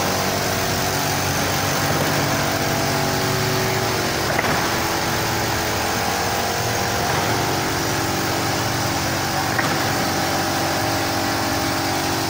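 Wall panel production line machinery running steadily, a machine hum made of several steady tones, with a faint knock about four seconds in.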